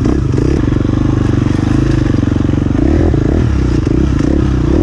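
Enduro dirt bike engine running close up under the rider on a trail ride, its revs rising and falling with the throttle.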